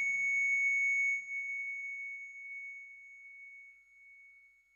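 Hospital heart monitor flatlining: one continuous high, steady beep that fades away over the last few seconds, the sign that the patient's heart has stopped.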